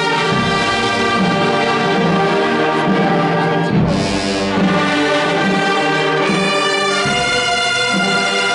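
A wind band of woodwinds and brass playing long, held chords. About four seconds in there is a percussion crash.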